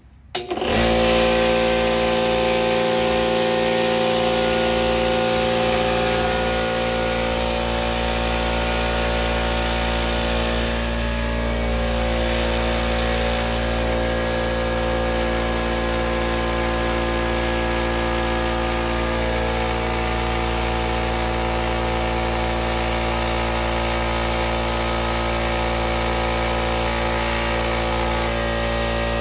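Central Pneumatic 21-gallon 2.5 HP air compressor, its reed valves just replaced, starting up abruptly about half a second in and then running steadily with a loud, even hum.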